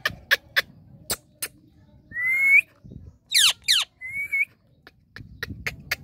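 Indian ringneck parrot calling: a run of short sharp chirps, then a rising whistle, two quick whistles sweeping downward, and another rising whistle, ending with more short chirps.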